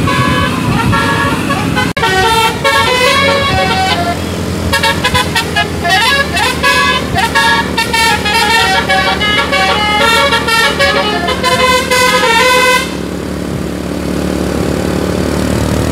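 Bus telolet musical air horn playing a fast melody of many short notes in quick pitch steps, with a few brief glides, until it stops about 13 seconds in. The bus's engine keeps running underneath.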